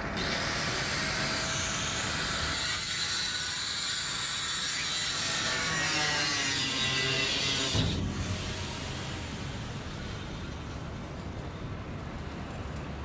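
A power tool working, a loud steady noise that cuts off abruptly about eight seconds in, leaving a quieter steady hiss.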